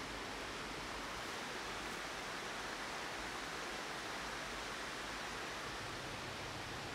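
Steady rushing of a flowing river, an even wash of water noise with no breaks.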